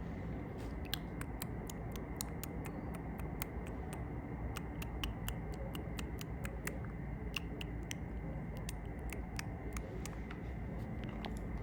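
Light, quick tapping clicks on makeup items, irregular at roughly four a second with a few short pauses, over a steady faint hiss.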